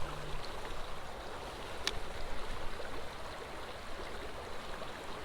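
A small flowing creek rushing steadily, with a single sharp click about two seconds in.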